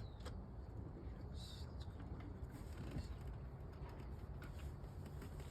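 Faint handling sounds: a few light clicks and taps of a 3D-printed plastic light panel being set into a truck's dash, over a low steady rumble.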